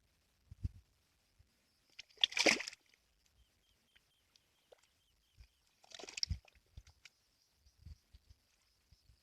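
Pond water splashing and sloshing twice, about two seconds in and again about six seconds in, with soft low knocks in between.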